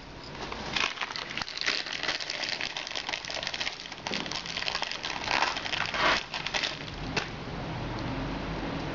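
Close, irregular crinkling and rustling of a motorcycle wiring harness and the cloth under it being handled and pulled about. It stops about seven seconds in.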